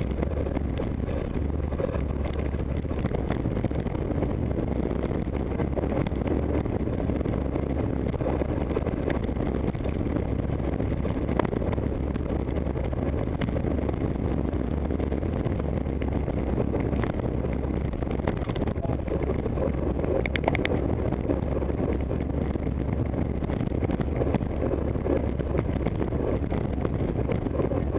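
Steady wind and road rumble on a camera riding a racing bicycle in a pack of cyclists, with a few light clicks.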